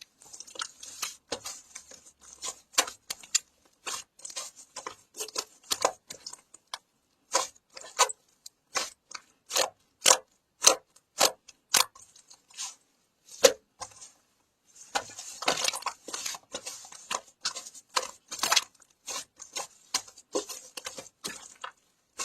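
A long run of sharp, irregular clicks and taps, a few each second, with a stretch of crinkly rustling about two-thirds of the way through.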